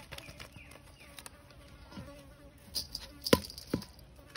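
A metal spoon clinking and scraping against a stainless steel bowl while stirring minced pork, with a few sharp clinks in the second half, the loudest about three seconds in. An insect buzzes faintly throughout.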